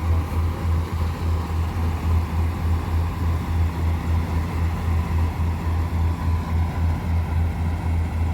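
Diesel engine of farm harvesting machinery running steadily, with a low throb that pulses about three to four times a second.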